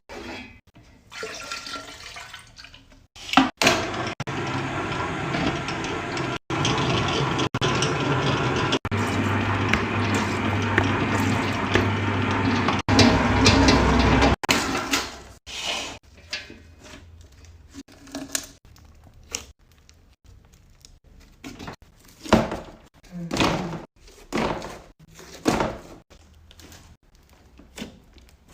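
Liquid being poured steadily into a container for about ten seconds, with several abrupt cuts. After that come a series of short, separate squelching and handling noises.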